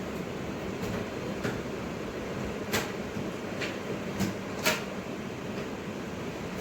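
About six short, sharp clicks or knocks, the loudest two roughly three and four and a half seconds in, over a steady background hum.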